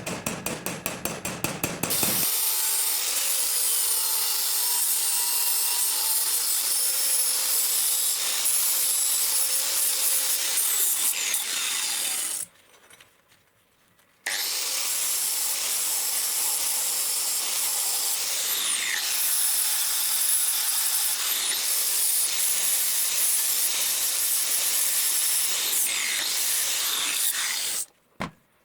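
Quick, evenly spaced hammer taps, then a power grinder working the saw-blade steel with a steady high grinding noise. The grinding stops for a moment about halfway through and cuts off near the end.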